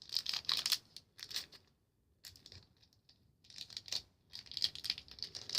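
Plastic toy packaging crinkling and rustling in short, irregular bursts as a Shopkins blind bag is handled and opened.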